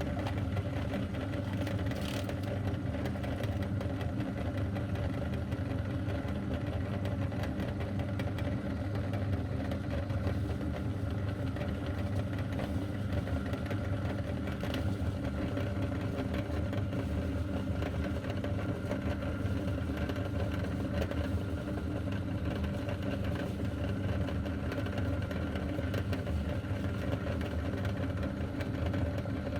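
Electric meat grinder's motor running steadily as it grinds crunchy cookies, with a few faint cracks, one about two seconds in and another midway.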